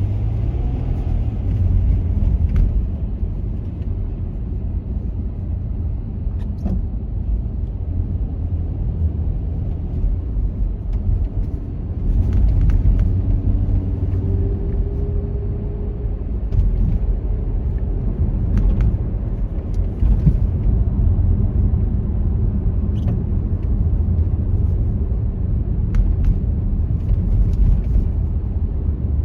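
Steady low rumble of a car being driven: engine and tyre noise, with a few faint clicks scattered through it.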